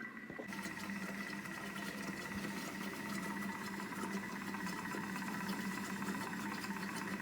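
Thermomix TM6 kitchen appliance running, its motor giving a steady hum with a high whine as it heats the sauce in its bowl. The hum starts about half a second in.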